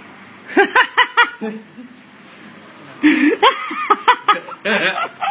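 People laughing: a quick run of short ha-ha bursts starting about half a second in, then more laughter from about three seconds in.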